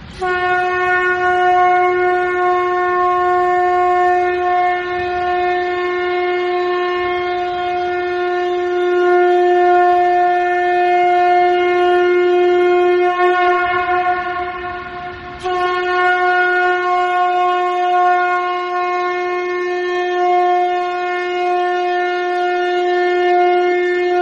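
Conch shell (shankha) blown in two long blasts, a single steady note each: the first held about thirteen seconds, then a brief break, then a second blast held on. It is blown to open the Diwali puja.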